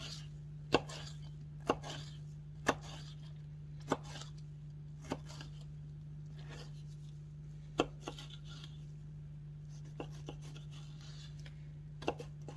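Kitchen knife chopping tomato on a wooden cutting board: separate sharp knocks of the blade hitting the board, roughly one a second, with a pause of a few seconds in the middle. A steady low hum runs underneath.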